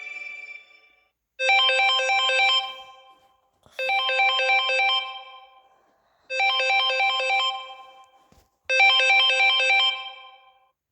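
LG mobile phone ringtone imitating a telephone ring: four fast electronic trills, each about a second long and repeating about every two and a half seconds.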